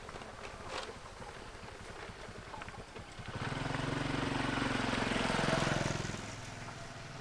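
A motor vehicle passes: its engine's low, steady drone swells up about three seconds in, holds for about three seconds, then fades away.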